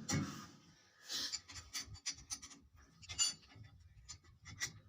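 Scattered clicks, knocks and short scraping sounds of hand tools and metal parts being handled during disc brake work.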